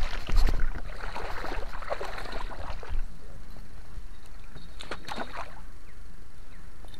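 Water sloshing and splashing around a fishing boat, with a steady rumbling outdoor noise and a few louder splashes about three and five seconds in, as a hooked pike is brought to the boat.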